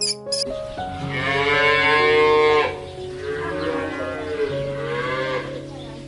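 Cows mooing: two long moos, the first louder, over soft background music.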